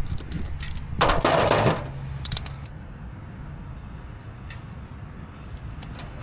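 Light metallic clicks and taps as a motorcycle's oil drain plug is worked loose by hand over a disposable aluminum pan, with a short rush of noise about a second in.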